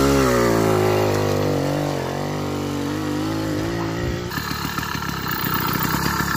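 80cc two-stroke bicycle engine running, its pitch rising and falling with the throttle. About four seconds in it drops suddenly to an uneven, putt-putting idle.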